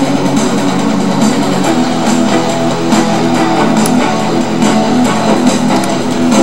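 Background music led by guitar, with a steady beat; the chord changes about two seconds in.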